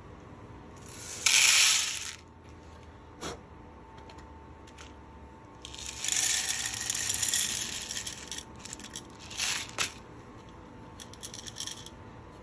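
Dry green coffee beans rattling as they are poured out of the coffee moisture and density meter's sample cup, in a short burst about a second in and a longer pour from about six to eight seconds. Light clicks of the meter's plastic cup and hopper come in between.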